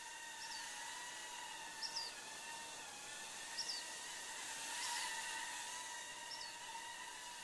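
Steady high whine of a quadcopter drone's propellers, holding one pitch, with short high bird chirps about every second and a half.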